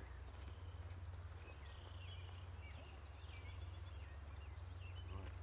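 Faint outdoor ambience: a steady low rumble with scattered short, high chirping bird calls in the distance, mostly in the middle stretch.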